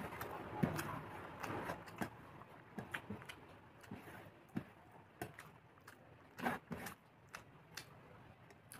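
A person eating: irregular short crunches and clicks of chewing and handling food, crowded together in the first couple of seconds and sparser after.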